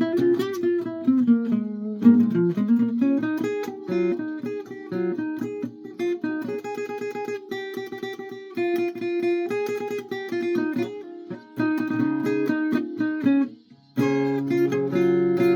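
A guitar being played: a quick run of picked single notes, a brief break near the end, then fuller strummed chords.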